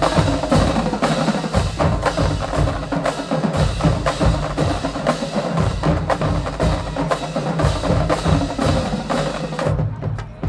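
Marching drumline playing a fast cadence: snare drums, rim clicks and pitched bass drums in a steady, even beat. The playing cuts off suddenly near the end.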